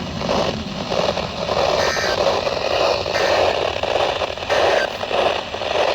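NOAA Weather Radio receiver hissing and crackling with static from weak reception, a muffled, unintelligible broadcast voice coming and going underneath.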